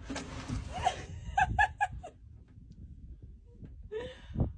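A woman gasps with a breathy rush, then laughs in four quick short bursts; a short rising vocal sound follows near the end.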